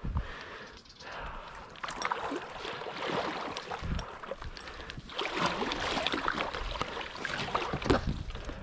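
Wading through shallow marsh water: continuous sloshing and splashing, with reeds and clothing rustling close to the microphone and a few low thumps, louder in the second half.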